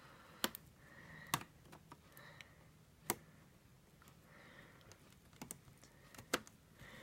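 Sharp, scattered clicks and taps of plastic model railway track being handled and pushed into place on the layout, about half a dozen spread out with gaps between.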